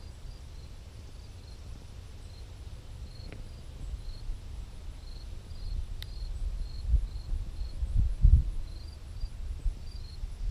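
Wind buffeting the microphone in low rumbling gusts, swelling about two-thirds of the way through and again near the end, with faint high-pitched chirping repeating in the background.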